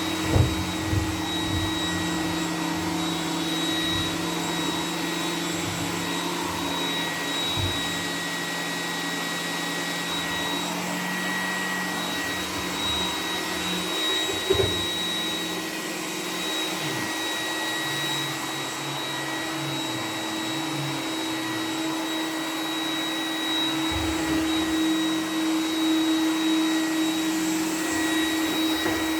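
iRobot Roomba 980 robot vacuum running in boost mode: a steady motor hum with a high whine. Two brief knocks stand out, one about half a second in and one about midway.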